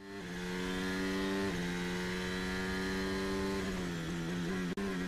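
Formula 1 car engine running at a steady pitch, then falling in pitch from about three and a half seconds in as it comes off the throttle. There is a brief cut in the sound just before the end.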